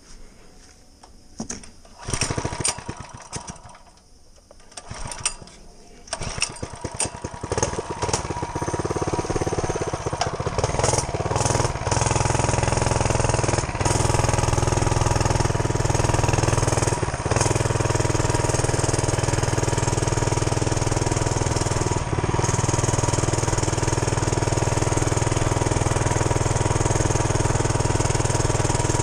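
Mini bike's small engine being started: a few seconds of knocks and sputters, then it catches about eight seconds in and settles into a steady, loud run.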